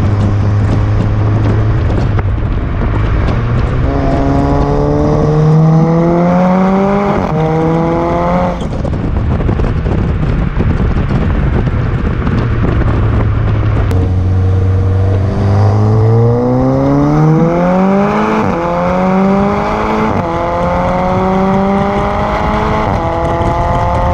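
Audi TTS's turbocharged four-cylinder through a Milltek cat-back exhaust, heard close to the tailpipes while driving, with wind and road noise on the microphone. The exhaust note rises in pitch under acceleration from a few seconds in, breaks off sharply, then climbs again in a second, longer pull with a dip partway through, as at a gear change.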